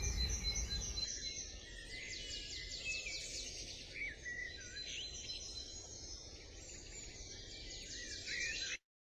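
Songbirds singing and chirping, a busy mix of high trills and short calls, while background music fades out in the first second. The sound cuts off abruptly near the end.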